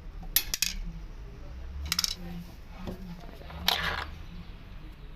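Sharp metallic clinks, about four of them, of small metal objects being handled or dropped, the last one longer and ringing, over a low steady hum.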